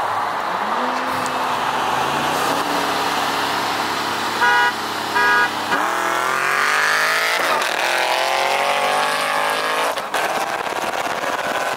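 Car engine under acceleration, broken by two short car-horn honks, after which it pulls hard at full throttle, its pitch climbing steeply and dropping back at two gear shifts.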